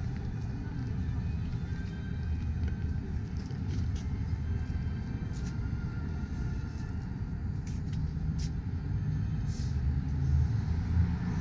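Downtown street background: a steady low rumble that grows a little louder near the end, with a few faint clicks.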